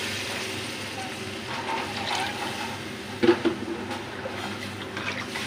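Water pouring into an aluminium pot of thick spiced meat gravy, fading out within the first second or so. Then a steel ladle stirring and scraping in the pot, with one sharp knock against the metal about three seconds in.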